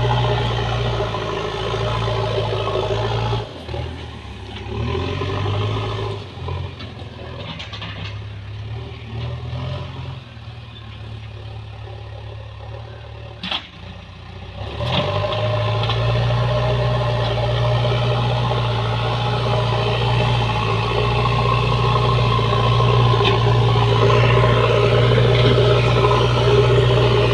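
JCB backhoe loader's diesel engine running. A few seconds in it eases to a lower, quieter note for about ten seconds, with one sharp click, then revs back up and runs steadily loud.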